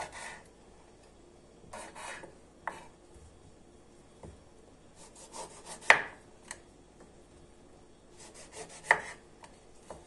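Knife slicing whole lemons, rind on, on a cutting board: irregular rasping strokes as the blade cuts through the peel, with two sharper knocks of the blade on the board about six and nine seconds in.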